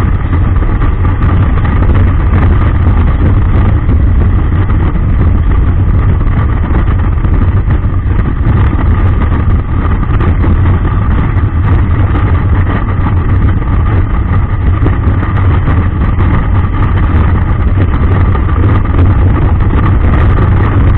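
Steady wind rush and engine and road noise of a touring motorcycle cruising at highway speed, picked up by a camera mounted on the bike's fairing, with the low wind rumble loudest.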